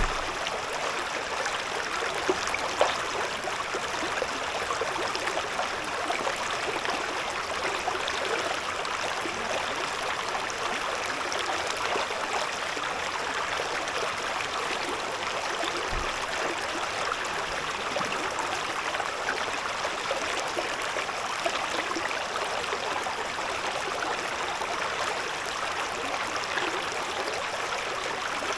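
Shallow river babbling over stones, a steady, even water sound. One brief low thump about halfway through.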